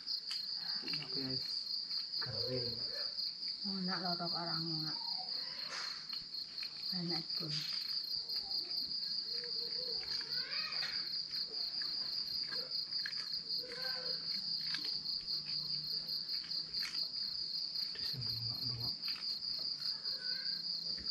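Night crickets chirring in a continuous high-pitched trill that does not let up.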